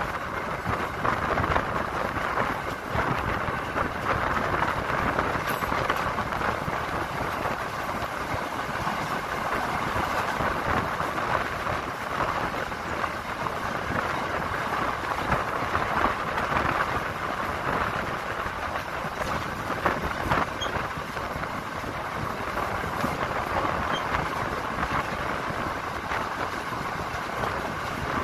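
Passenger train running along the rails, a steady noise of wheels and moving air heard from on board.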